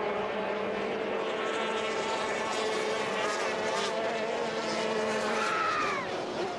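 Several racing hydroplanes' outboard engines running flat out on the water, a steady high drone. Near the end one boat passes close and its engine note drops in pitch as it goes by.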